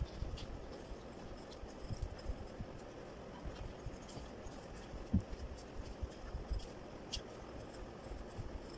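Pencil scratching on paper as a sketch is drawn, with irregular soft low knocks.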